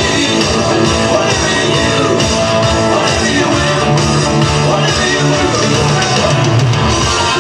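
Loud rock-style music with guitar, playing steadily.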